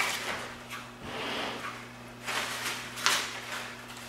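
Artificial silk plant foliage and branches rustling and brushing in a few short bursts as they are fluffed and bent by hand, over a faint steady hum.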